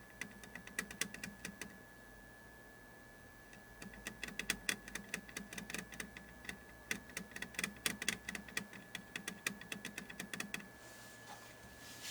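Rapid, irregular clicking taps, several a second, like typing, in two runs with a pause of about two seconds between them, over a faint steady high-pitched tone.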